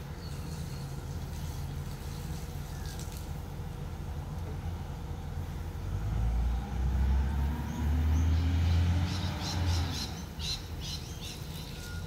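Garbage truck engine running out of sight, a low rumble that grows louder and revs up in pitch about six to ten seconds in, then eases off. Birds chirp several times near the end.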